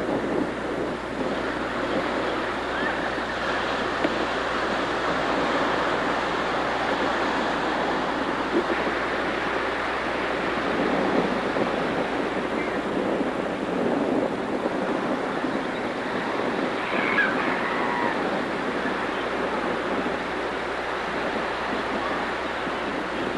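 Ocean surf washing steadily against the shore, an even rush of noise with no distinct breaks.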